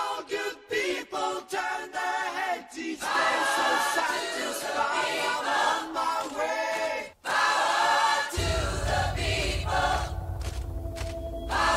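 Excerpts of recorded songs: a vocal group singing in close harmony with little accompaniment. After a short break about seven seconds in, a deep bass backing comes in under the voices.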